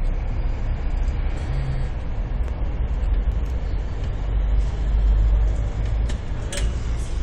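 Steady low rumble inside a Roosevelt Island Tramway aerial cabin as it travels along its cables, with a brief click near the end.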